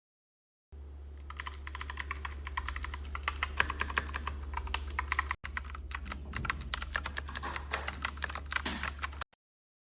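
Rapid typing on a mechanical keyboard with Royal Kludge RK switches: a dense run of keystroke clacks, briefly cut off about halfway through, over a low steady hum.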